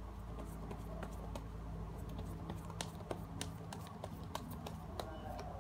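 Scattered light clicks and taps at irregular intervals, several a second, over a steady low hum.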